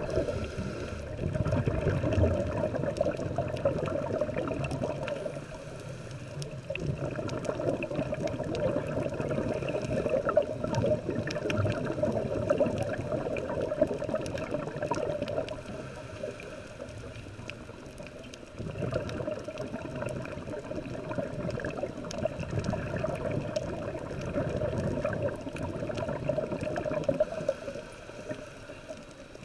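Muffled underwater water noise heard through a camera's waterproof housing. It is a low, gurgling wash that swells and eases in long spells, with quieter dips about a quarter and a half of the way through and again near the end.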